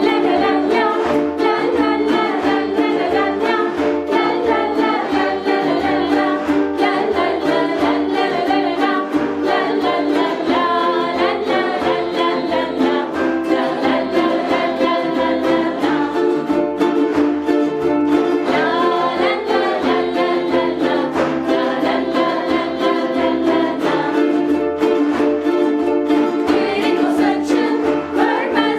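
Ukuleles strummed in steady chords while voices sing a children's song along with them.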